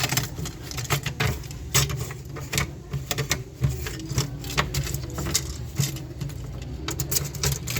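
Irregular sharp clicks and rattles of a toy gun's small plastic and metal parts being handled, over a steady low hum.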